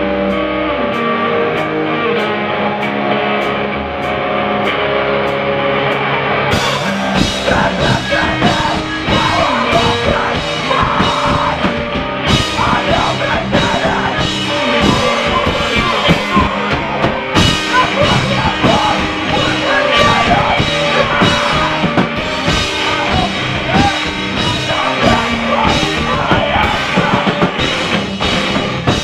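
A rock band playing live through amplifiers: electric guitar leads on its own at first, then about six and a half seconds in the drum kit and the rest of the band come in and play on loud and dense, with cymbals.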